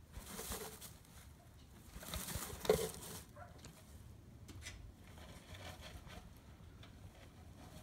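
Rabbit moving about in a straw-lined wooden nesting box: faint rustling of straw, with a short louder bump about three seconds in.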